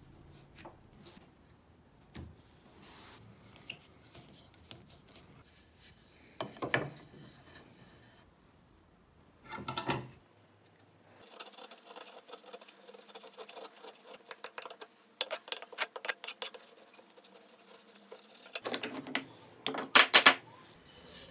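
Hardwood jig pieces being handled against a wooden jig held in a bench vise: wood knocking and sliding on wood, with scattered clicks and short scrapes. The loudest scraping comes in quick bursts near the end.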